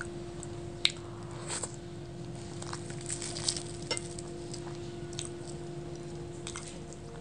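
Close-miked chewing and wet mouth sounds of luchi (puffed fried bread) with chickpea daal being eaten by hand, with soft squishes as fingers tear the bread and scoop the daal. A sharp click stands out a little under a second in.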